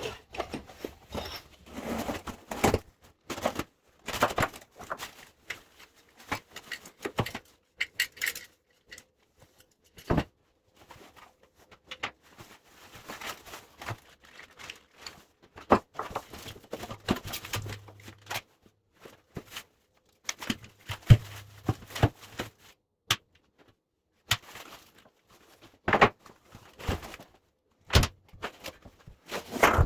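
Irregular knocks, clinks and rustling of packaging and metal parts being handled while a sawmill's shipping crate is unpacked, with a few dull thuds.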